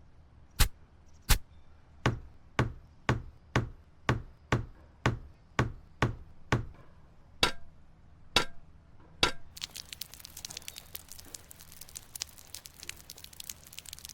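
A series of sharp knocks, about two a second, as a small tool taps on hard material. After about nine and a half seconds the knocks give way to a dense crackling patter.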